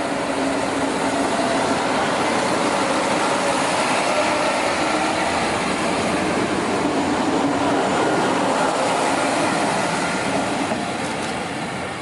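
Sanriku Railway diesel train running on the line, a loud steady running noise with a few faint tones, fading near the end.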